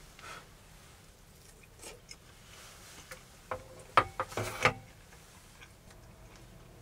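A metal mess tin's handle and chopsticks clinking against the tin as it is picked up: a quick cluster of sharp metallic clinks with brief ringing, about three and a half to five seconds in. Faint small tableware and eating noises otherwise.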